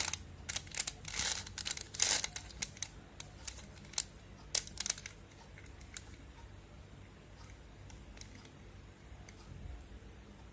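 Plastic Rubik's Cube layers being twisted by hand: a quick run of clicking and rattling turns in the first few seconds, then only a few faint clicks.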